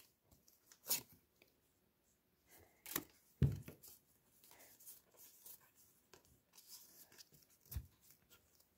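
Trading cards and foil booster-pack wrappers being handled: a few short, quiet rustles and taps, with a soft thump about three and a half seconds in as something is set down on the table.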